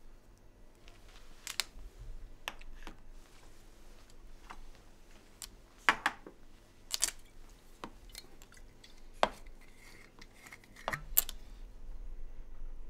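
Glasses and dishes clinking and knocking as they are handled, in irregular sharp clinks, about five of them louder than the rest.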